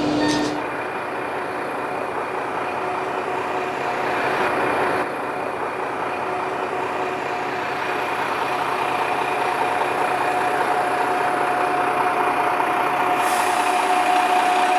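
Wakasa Railway diesel railcar running, a steady engine drone with a faint steady whine coming in partway through.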